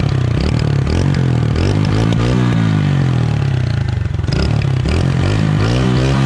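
TVS Radeon commuter motorcycle's 110 cc single-cylinder four-stroke engine running at the exhaust, revved up and back down about twice. It has a somewhat bassy exhaust note.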